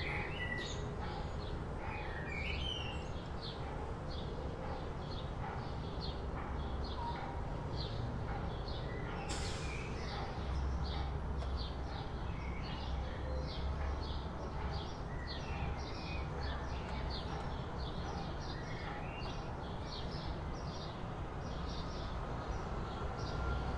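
Birds chirping: one bird repeats a short high call about twice a second, and others give a few gliding notes, over a steady low rumble. There is a brief hiss about ten seconds in.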